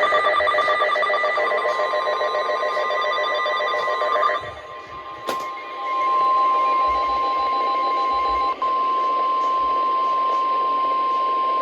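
NOAA Weather Radio emergency alert tones announcing a flash flood warning. For about the first four seconds there are rapidly pulsing, warbling data tones. A sharp click comes about five seconds in. After that, the steady 1050 Hz warning alarm tone is held, with one brief break about eight and a half seconds in.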